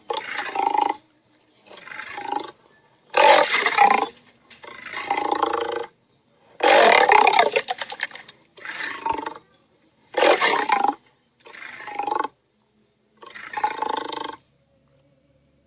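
Lion roar sound effects voicing a griffon: about nine short roars in a row, each a second or so long with brief pauses between, the series ending about a second before the end.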